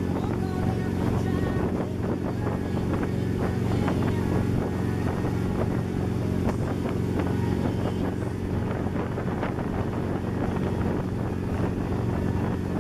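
Towing boat's inboard engine running steadily at wake-surfing speed, with the rush of churning wake water and wind on the microphone.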